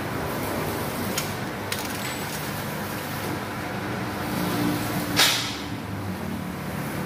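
Metal parts clinking as cast-iron hubs are handled on a steel frame, over steady workshop background noise, with one louder, sharp metallic noise about five seconds in.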